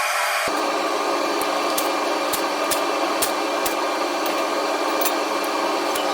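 Smoke hog fume extractor running with a steady fan noise, with sharp irregular clicks about twice a second over it.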